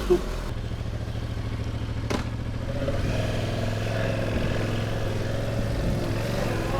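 Motorcycle engine idling steadily, with one sharp click about two seconds in.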